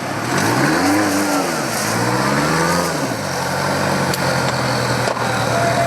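Rock crawler's engine revving up and back down twice in quick succession, then running at a steady lower speed.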